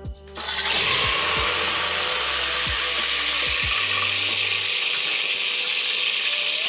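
Beef sizzling in hot mustard oil in an open pressure cooker. The sizzle starts suddenly about half a second in as the meat goes into the oil and then carries on steadily.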